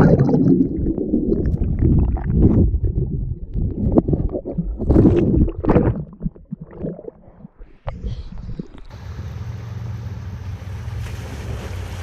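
Muffled churning and bubbling of a swimmer's strokes, heard through a camera held underwater, in uneven surges. From about nine seconds it gives way to a steady, even rush of water.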